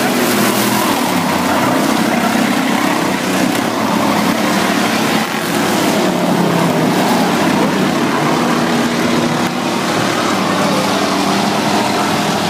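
Dirt-track race cars' engines running at speed around the oval, a loud steady drone whose pitch wavers as the cars go through the turns.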